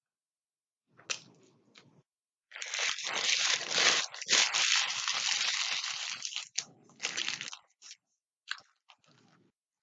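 Close-miked crunching and crinkling from a meal: a few short bursts, then about four seconds of loud continuous crackly noise, then scattered short crunches near the end.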